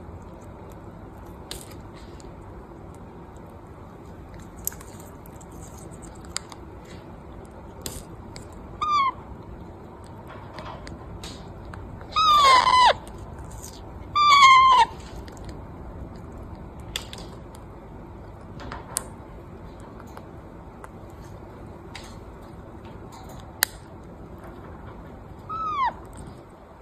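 Parrot calling: four downward-gliding squawks, two loud ones close together about twelve and fourteen seconds in, and shorter, softer ones around nine seconds in and near the end. Scattered faint clicks between them.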